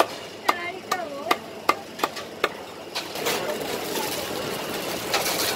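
Meat cleaver chopping poached chicken on a wooden chopping block: about seven sharp, even strokes in the first two and a half seconds. Then the rustle and crinkle of a plastic bag being handled as food is packed.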